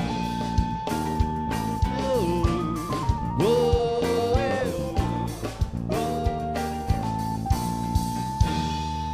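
Band playing an instrumental ending: guitar and bass over a drum kit, with a few notes sliding in pitch in the middle. The drums stop near the end and the held notes fade.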